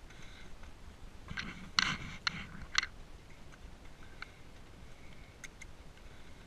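Mule hooves on the rocky trail: a few irregular sharp clacks and scrapes, loudest about two seconds in, with fainter ticks near the end.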